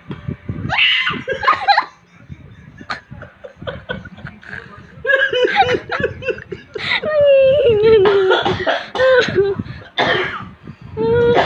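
A baby shouting in short, loud, wavering bursts, with one longer falling yell about halfway through, while a man laughs in breathy, cough-like bursts.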